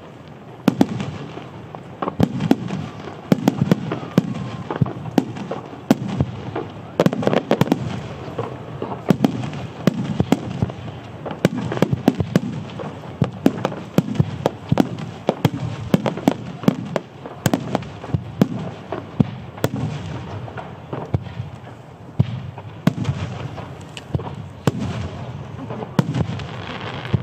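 Japanese starmine fireworks, shells launching and bursting in rapid succession. Sharp bangs and crackles come several times a second over a continuous low rumble of booms.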